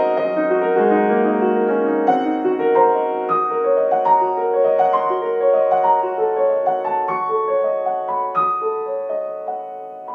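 Background piano music: single struck notes in a slow melody over sustained lower notes, growing quieter toward the end.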